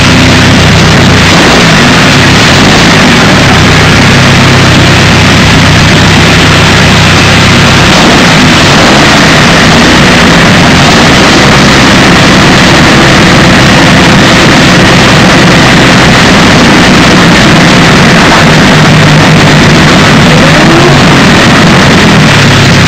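The Napier-Bentley's 24-litre W12 Napier Lion aero engine running very loud while the car stands still, its pitch rising and falling a few times with the throttle.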